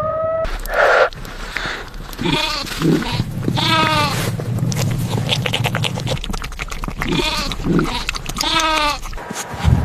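An animal bleating: four quavering cries in two pairs over a steady low rumble, after a short loud noise about a second in.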